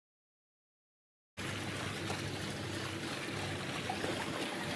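Dead silence, then a steady rushing noise starts abruptly about a second and a half in and holds even.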